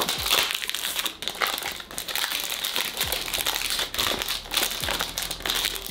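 Clear cellophane shrink-wrap being peeled and crumpled off a cardboard perfume box: a dense, continuous run of crinkling and crackling.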